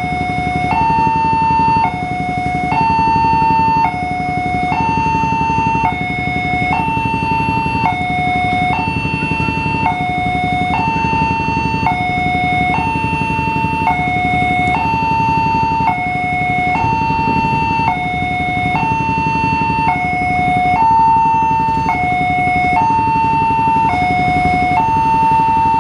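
Railway level-crossing warning loudspeaker sounding its electronic two-tone alarm: a higher and a lower tone alternate, each held about a second, over and over. A steady low rumble runs underneath.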